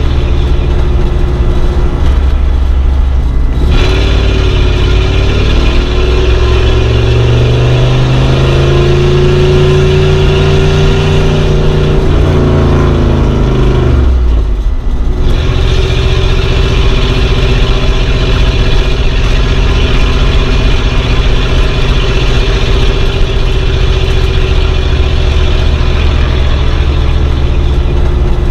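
Old car's engine running as it is driven: the revs climb for several seconds, hold, then drop off about halfway through before it settles back to a steady run.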